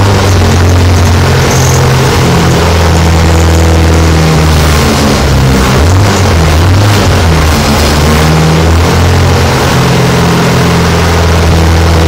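Car engine running loud and held at about 2,500 to 3,000 rpm, its low note shifting slightly up and down.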